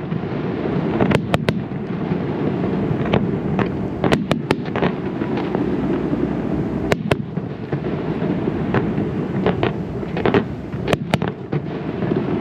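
Aerial fireworks display: a continuous low rumble of shell bursts, broken by many sharp cracks that come singly and in quick clusters of two or three.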